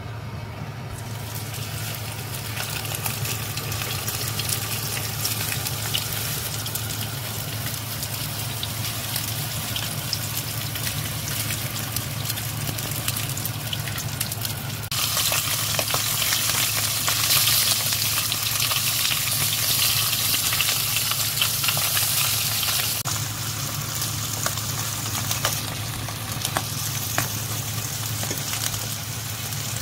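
A split horse mackerel frying in oil in a nonstick pan: a steady sizzle with scattered crackles, which grows louder about halfway through. A low steady hum runs underneath.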